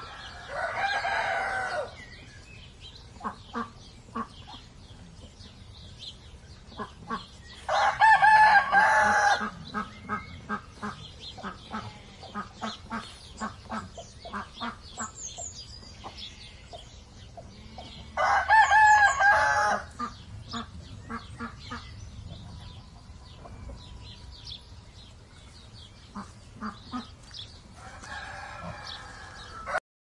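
A rooster crowing four times, about ten seconds apart, each crow a loud call lasting one and a half to two seconds. In between, short poultry calls repeat steadily and small birds chirp faintly; the farmyard sound stops abruptly just before the end.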